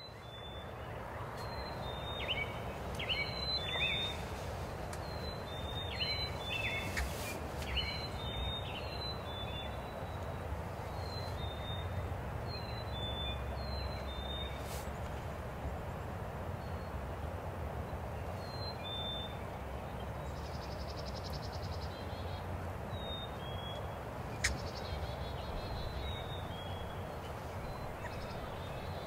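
Small songbird repeating short, high chirps over a steady low outdoor rumble, with one sharp click near the end.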